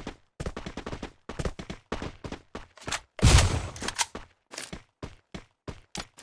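A rapid, irregular series of sharp bangs, like gunfire, with a louder, longer burst about three seconds in.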